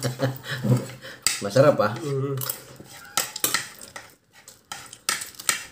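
Spoons clinking against plates during a meal, a few separate sharp clinks through the second half.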